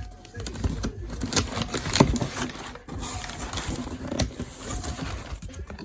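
Packaging and intake parts being handled: rustling and irregular clicks and knocks, with one sharp knock about two seconds in.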